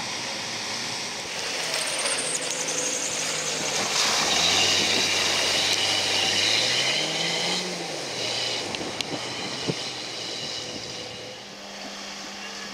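Jeep Cherokee XJ engine revving under load as it drives through mud and water, its pitch climbing from about four seconds in and dropping back near eight seconds, with a splashing hiss over it. After that it runs quieter, with a few snaps and clicks.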